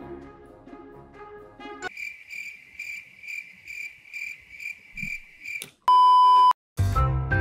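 Light background music, then a cricket-chirp sound effect: an even chirping, about two and a half chirps a second for nearly four seconds, that cuts off suddenly. A loud, pure, steady test-tone beep of about half a second follows, with music coming back near the end.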